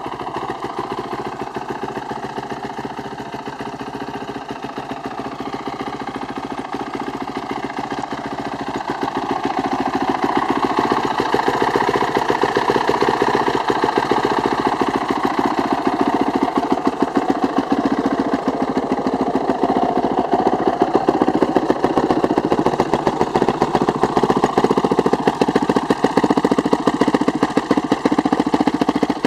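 2007 Honda CRF450R's single-cylinder four-stroke engine idling steadily, a fast, even pulsing that grows louder from about ten seconds in.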